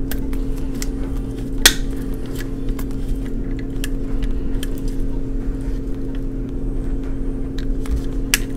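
Small plastic clicks and taps as a Blythe doll's faceplate and eye mechanism are handled and worked, the sharpest about a second and a half in and another near the end, over a steady low electrical or fan hum.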